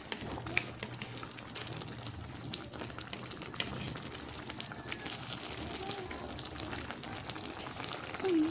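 Milkfish pieces simmering in a tomato sauce in a shallow pan, with a steady sizzle and many small bubbling pops. A wooden spatula scrapes and nudges the fish in the pan.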